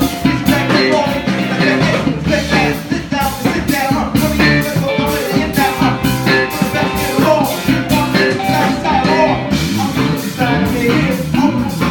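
Live band playing an up-tempo rock number, with drums keeping a steady beat under bass and guitar.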